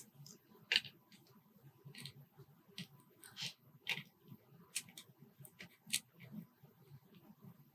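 Faint, irregular clicks and light scrapes of small metal lock parts being handled as a Kwikset rim cylinder is taken apart: key pins, drivers and steel master wafers being picked out of the plug.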